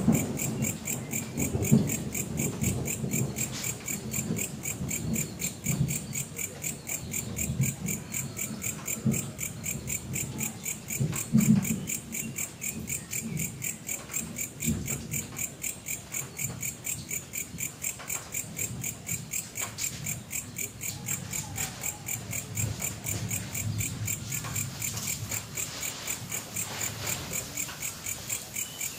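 Insects chirping in a steady, even rhythm of high-pitched pulses, with irregular soft knocks and rustles from pots and soil being handled close by.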